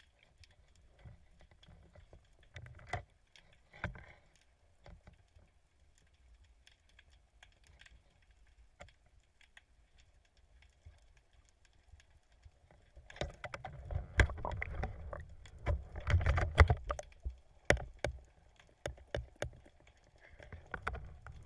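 Faint scattered clicking and crackling, then from about 13 seconds in, loud irregular splashing and sloshing of water with sharp knocks.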